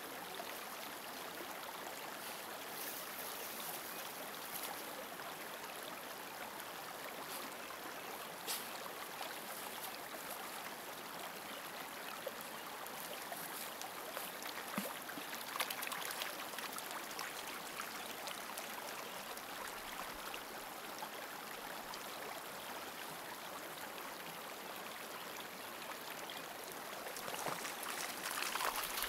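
Steady sound of running, trickling water with a few small splashes, growing louder briefly near the end.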